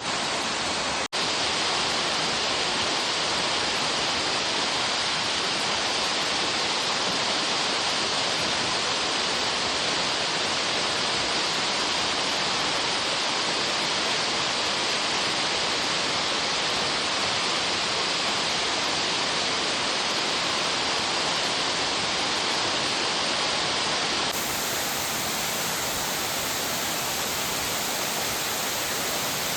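Waterfall pouring: a steady, loud rush of falling water, with a momentary break about a second in.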